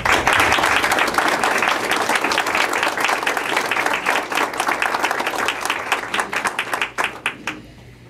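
Applause from a small group of people, dense at first and thinning to a few last separate claps about seven seconds in.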